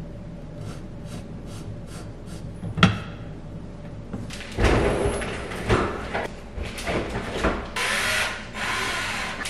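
Hands-on work noise over a steady low hum: a run of faint clicks, a single sharp knock about three seconds in, then irregular scraping, rattling and hissing as parts and tools are handled.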